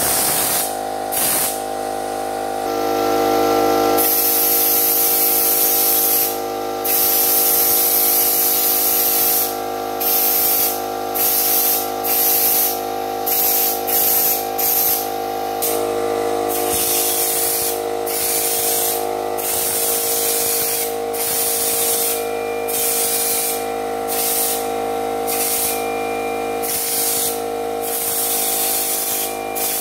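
Air-fed canister spray gun spraying bedliner: a loud hiss broken by many brief pauses where the trigger is let go. A steady motor hum runs underneath.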